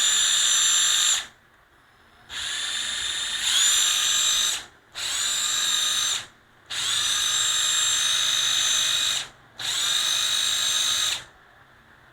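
National EZ7206 cordless impact driver running free without load in five trigger pulls, each a steady high motor whine that rises as it spins up and cuts off sharply. During the second run it steps up to a faster speed partway through.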